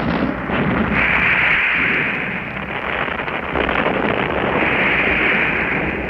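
Archival recording of a World War II tank battle: a dense, continuous din of battle noise with a heavy low rumble and a few faint shots near the middle. It has the dull, narrow, hissy sound of an old field recording.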